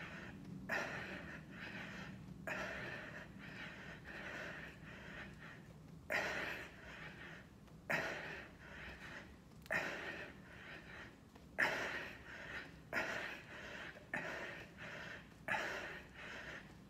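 A man's hard breathing under exertion during a fast set of push-ups: forceful, gasping breaths with sudden starts about every one and a half to two seconds, with softer breaths between them.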